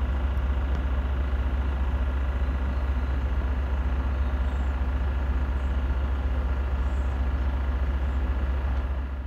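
Diesel engines of class 73 electro-diesel locomotives running in a rail yard: a steady deep rumble with faint steady whining tones above it.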